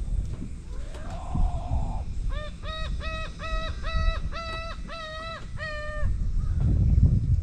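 A bird calls a quick series of about ten short, level-pitched, harsh notes, after a single rising note. Low wind rumble on the microphone runs underneath and grows louder near the end.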